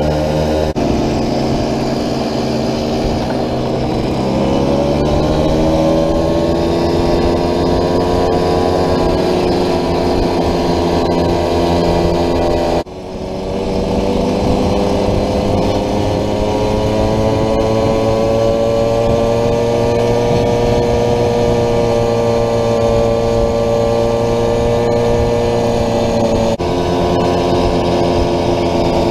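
Vintage 50cc two-stroke moped engine running under way, heard from the rider's own machine: its pitch rises a few seconds in and then holds fairly steady as it cruises. The sound breaks off abruptly and resumes twice.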